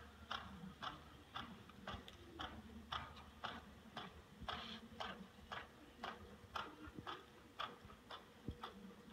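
A horse loping on the arena dirt: faint, regular hoofbeats at about two a second.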